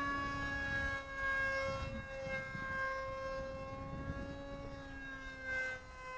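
2200kv Turnigy brushless outrunner motor and propeller of an RC parkjet whining in flight, a steady tone that wavers a little in pitch, with wind rumble on the microphone.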